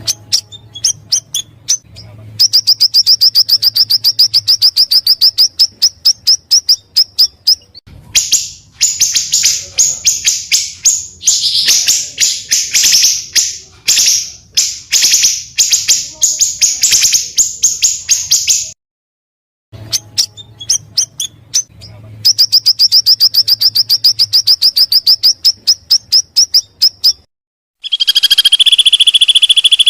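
Small songbirds singing in spliced segments: long rolling trills of rapid repeated high notes alternate with harsher chattering bursts, broken by abrupt short silences. About two seconds before the end it switches to a steady, shrill insect-like trill.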